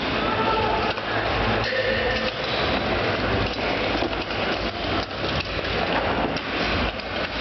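Mass melee of fighters in medieval steel armour: a dense, continuous clatter of weapons striking helmets, armour and shields, with a few brief shouts.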